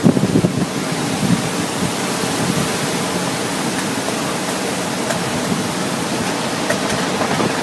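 Steady rushing roar of strong storm wind blowing over the microphone near a tornado, with a few faint knocks in the first second.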